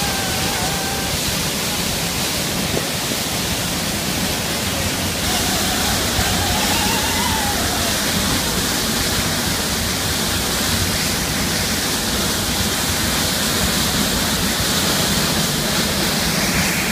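Swollen waterfall in spate after heavy rain: a loud, steady rush of water, with a brighter hiss from about five seconds in.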